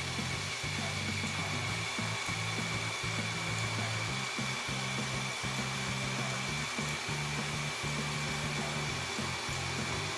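LEGO Power Functions electric motors spinning the model hovercraft's ducted fans: a steady whir with a high, even whine.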